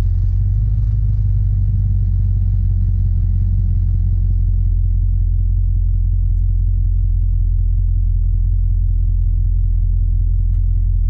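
Vehicle engine idling and creeping forward in stop-and-go traffic, a steady low rumble.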